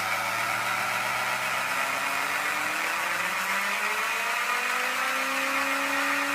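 Bedini motor's magnet rotor spinning up under its pulse coil, giving a buzzing whine that rises slowly and steadily in pitch.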